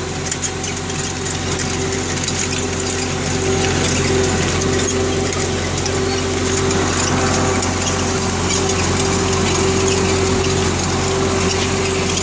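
UTB 650 tractor's diesel engine running steadily under load as it pulls a six-row fertilising cultivator, a constant hum with an even mechanical noise over it.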